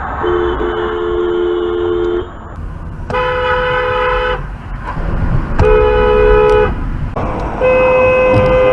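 Car horns honking four times over road noise: a two-note horn for about two seconds, then two shorter blasts of about a second each, and a last one held on past the end.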